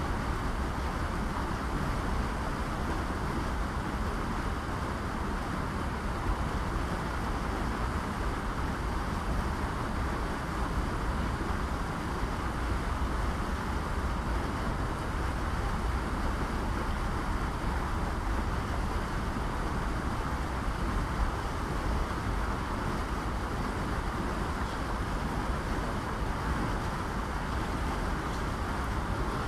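Flowing river water rushing steadily, with a low wind rumble on the microphone.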